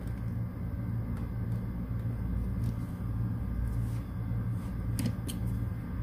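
Steady low hum, with a couple of small sharp clicks about five seconds in as a wire is pulled off its terminal.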